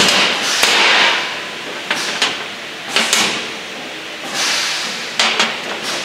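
Steel tools and punch parts clanking and scraping on a steel work table as a hammer and the punch pieces are handled: several sharp metallic knocks in a row, with sliding scrapes between them.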